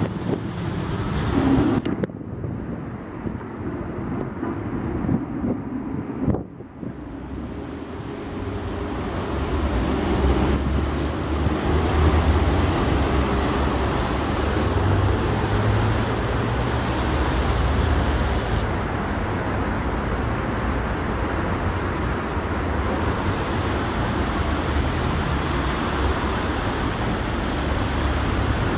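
Busy street traffic: cars and other vehicles passing in a steady mix, with a continuous low rumble. The sound changes abruptly about two seconds in and again around six seconds in. From about eight seconds the rumble grows fuller.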